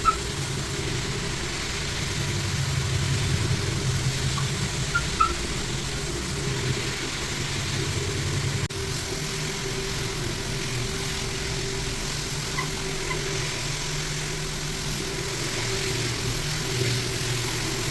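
A floor-care machine's electric motor running steadily, a low hum under a broad hiss, with a brief break about halfway through.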